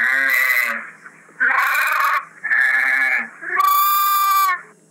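Sheep bleating: four bleats in a row, each about a second long, the last one a clearer, purer note.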